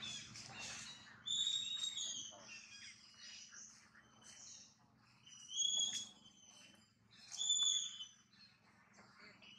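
Newborn long-tailed macaque giving high-pitched squeals: three short calls of even pitch, each under a second, about a second in and twice more past the middle.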